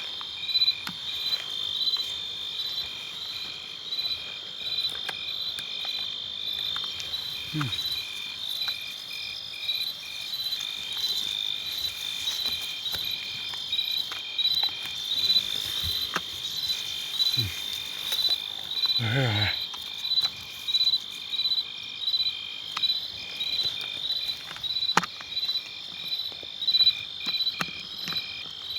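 Field insects singing: a steady high-pitched drone with regular pulsed chirps about twice a second. A brief low sound comes about two-thirds of the way through.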